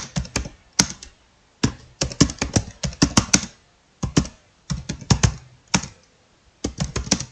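Laptop keyboard being typed on fast, in quick runs of keystroke clicks broken by brief pauses of about half a second.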